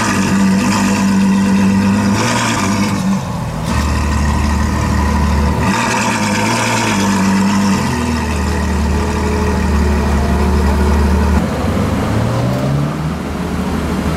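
Ferrari F12 N-Largo's V12 engine running at idle and revved a few times, the pitch rising and falling between a deep idle drone and higher revs.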